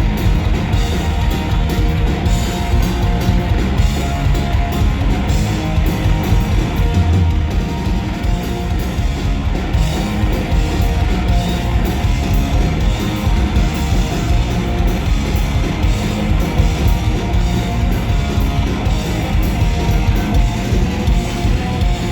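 Rock band playing live at a sound check: guitars and a drum kit, loud and continuous without a break.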